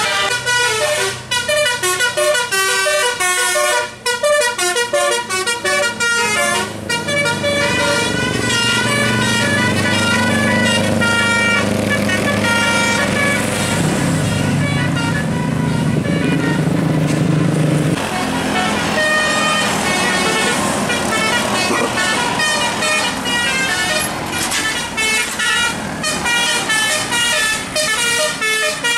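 Tour buses' telolet basuri melody horns playing quick runs of high tooting notes, over and over. A bus engine runs louder through the middle as a coach passes.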